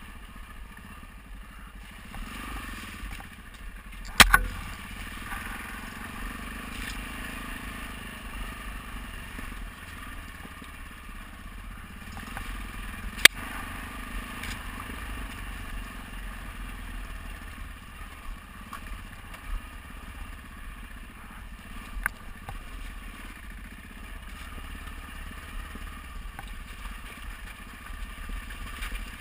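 Motorcycle engine running as the bike is ridden over a rough, rocky dirt track, with the clatter of the ride. Three sharp knocks come about four, thirteen and twenty-two seconds in, the one at thirteen the loudest.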